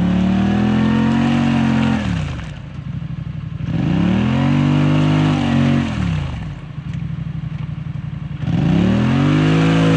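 Polaris Sportsman 850 ATV's 850 cc twin-cylinder engine revved three times, each rev about two seconds long, rising and then falling back, with rough lower running between them. The wheels spin in the mud bog and the quad stays stuck, not going anywhere.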